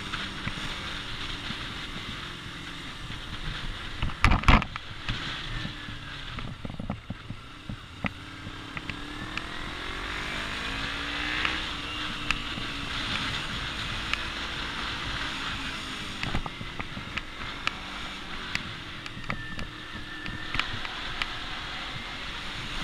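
Motorcycle engine running under way, its pitch rising and falling as the rider speeds up and slows, over wind and road noise. A loud thump comes about four seconds in, with scattered small clicks.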